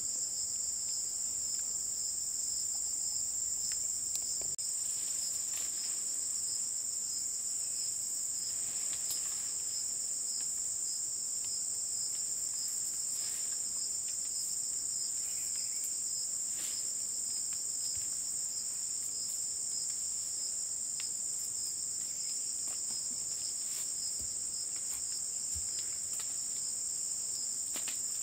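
Steady, high-pitched insect chorus that drones without a break, with faint scattered rustles and taps beneath it.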